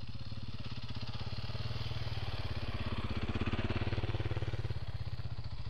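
Dirt bike engine running at low revs with a steady rapid beat, growing louder around the middle as the bike rides past close by.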